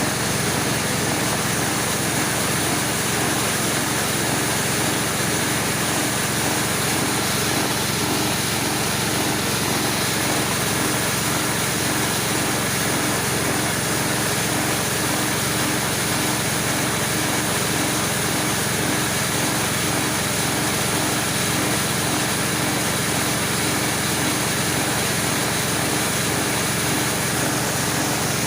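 Engine-driven homemade corn grinding machine running at a steady speed, a constant mechanical noise with no breaks.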